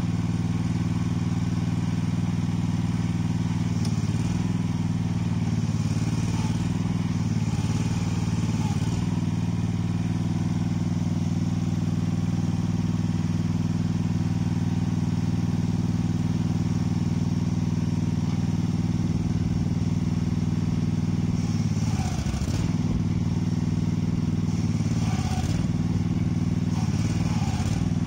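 Small engine of a self-propelled implement carrier idling steadily. Its note sags and wavers briefly about four to nine seconds in and again near the end as the hydraulic valves are worked, the load of swinging the arm with the spiked rotor.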